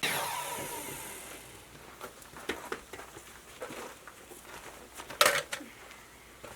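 Cordless power drill motor spinning, its pitch falling as it winds down over about two seconds. A few light knocks follow, then a short loud burst about five seconds in.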